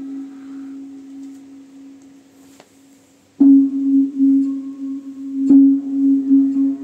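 End-credits music of the film, played through a television's speakers: a low, steady ringing tone slowly fades away. It is then struck afresh a little over three seconds in and again about two seconds later, each strike ringing on at the same pitch.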